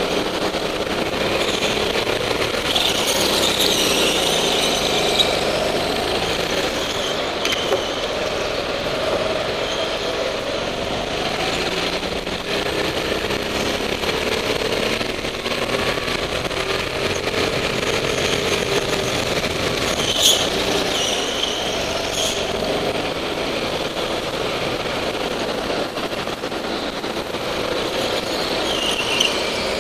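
Rental go-kart engine heard on board, running hard and rising and falling in pitch as the kart brakes and accelerates through corners. There are brief high tyre squeals a few times and several sharp clicks.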